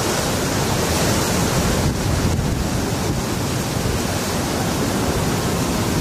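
Strong tropical-storm wind buffeting the microphone, with a steady rushing hiss and an uneven low rumble.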